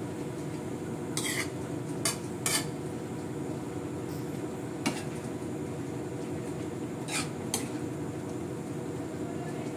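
Metal spatula scraping and clanking against a metal wok while stir-frying noodles, about six sharp clanks spread through, over a steady low background noise.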